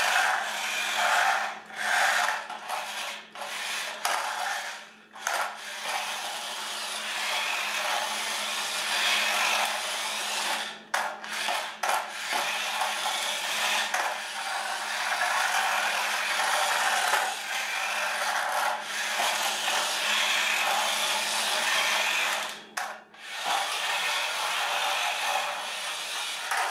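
Radio Shack Wheelie Bug toy car's small electric motor running and its plastic wheels rolling on a laminate floor, cutting out briefly several times as it stops and starts.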